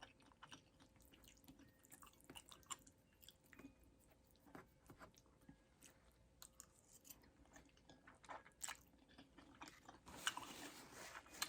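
Faint close-miked chewing of creamy Alfredo pasta: scattered soft wet mouth clicks and smacks, with a louder, busier stretch of chewing about ten seconds in.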